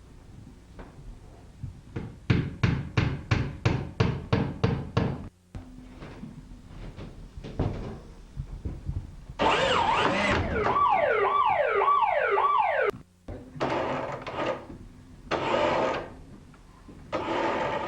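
About a dozen quick knocks, about four a second, then an electric alarm siren on the trap rig sounding for a few seconds with a fast, repeated falling warble, followed by three shorter harsh bursts.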